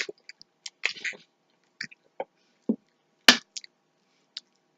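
Mouth smacks and short clicks of someone chewing a bite of protein bar, scattered and irregular, with the loudest smack about three seconds in.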